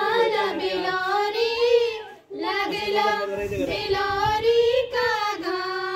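A group of schoolgirls singing a Garhwali folk song together into a microphone, with long held notes. The singing comes in phrases with a short break about two seconds in.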